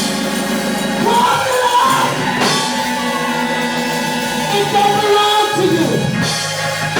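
Live church music playing held chords, with a voice singing over it.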